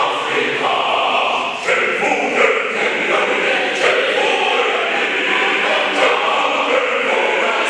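A choir singing in full voice: many voices holding chords that shift every second or so.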